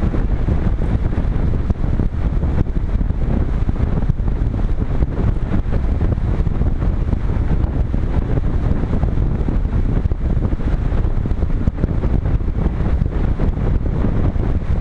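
Airflow rushing over a GoPro camera mounted on a Multiplex Cularis RC glider in flight: a steady, low rumble of wind on the microphone.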